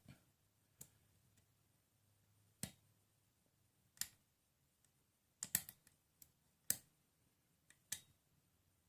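A lock pick working the pins of a Schlage pin-tumbler lock: a handful of sharp, irregularly spaced clicks with near silence between, as the picker works pin 5 under tension while holding a false set.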